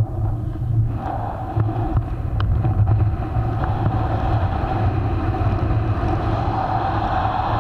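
Wind buffeting the camera's microphone during a fast speedflying descent under a small wing: a loud, steady low rumble with a faint steady whistle above it.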